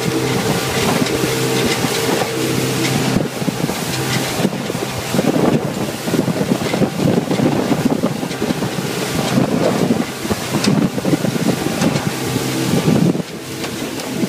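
Motorboat running at speed: the engine's steady drone under heavy wind buffeting on the microphone and the rush of water past the hull. The engine tone stands out most in the first few seconds and again near the end.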